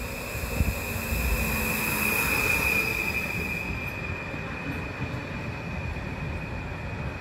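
PKP Intercity electric multiple unit slowing along the platform, its brakes squealing in one steady high-pitched tone that is loudest two to three seconds in, over the rumble of the passing cars. A high hiss above it cuts off suddenly about four seconds in.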